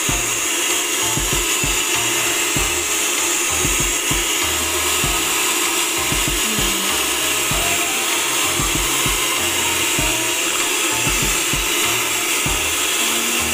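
Electric hand mixer running steadily, its beaters whisking a thin orange ice cream mixture in a bowl, with background music playing.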